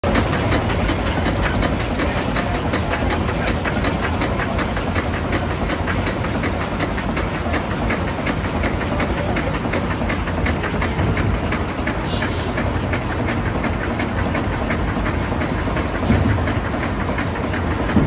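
30 hp Atlas horizontal steam engine running steadily at work, its flywheel and belt drive turning, a fast even clatter of the moving parts with one slightly louder knock about sixteen seconds in.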